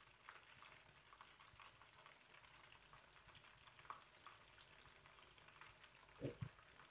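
Faint crackling of fish frying in hot oil, with two soft knocks near the end.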